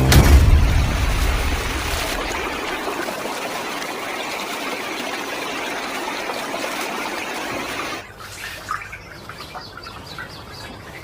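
Rushing water of a waterfall, a steady even hiss, opening with a low thump that fades over about a second. About eight seconds in it cuts to a much quieter scene of light dripping water with small scattered ticks and chirps.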